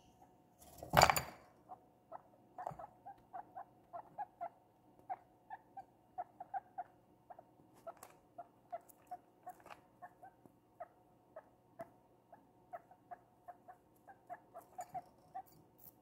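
Guinea pig chewing, a steady run of small crunching clicks, two or three a second. A single loud knock comes about a second in, the loudest thing heard.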